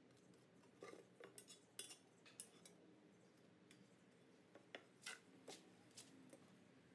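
Faint light clinks and taps of a steel ruler being set down and moved against a steel box-section pole on a plywood board, in two short clusters.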